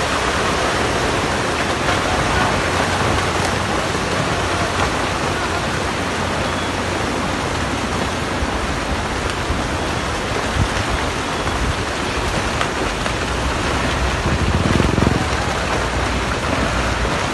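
Landslide on a steep hillside: rocks and soil streaming down the slope make a steady rushing noise, with a heavier low rumble about fifteen seconds in.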